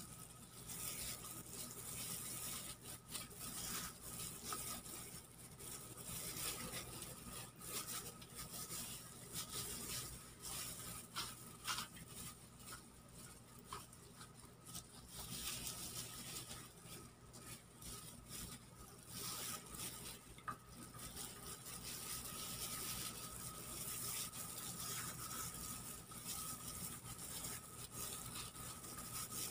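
Soft, irregular handling sounds of a raw squid being stuffed by hand with chopped tomato, onion and ginger: small taps and rustles over a steady hiss and a faint high hum.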